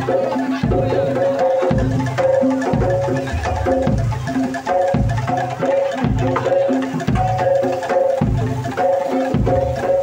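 Live percussion music with a steady beat: low drum strokes repeating under short, struck, tuned wooden notes in an interlocking pattern.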